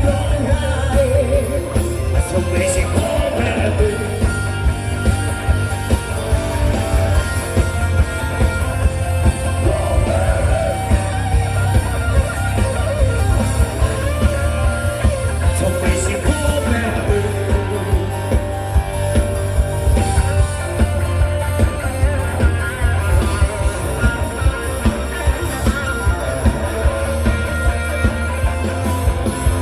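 Live band music with singing over a steady, heavy bass beat.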